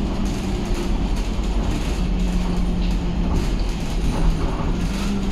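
Cabin noise of a moving city bus: a steady low drone from the engine and drivetrain with a humming tone that shifts slightly in pitch, and loose interior fittings rattling and clicking over it.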